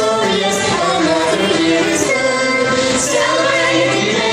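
Music with a woman singing, accompanied by instruments and cymbal-like hits about once a second, coming from the decorated holiday train's stage car.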